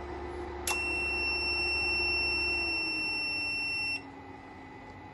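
Growatt SPF3000TL solar inverter's buzzer giving one long, high electronic beep of about three seconds as the unit is switched back on. It sounds over a low electrical hum that drops slightly in pitch and gets quieter partway through.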